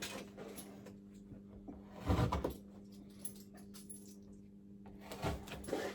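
Light clicks and small rattles of hand work, with one short louder burst about two seconds in, over a faint steady hum.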